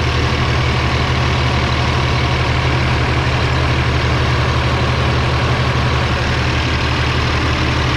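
Freshly rebuilt Cummins ISL9 inline-six diesel idling steadily at operating temperature.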